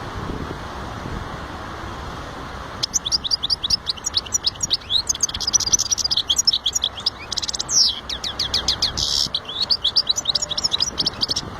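A small finch singing a long, fast run of twittering chirps and trills, with a buzzy stretch near the end. The song starts about three seconds in, over a steady background hiss.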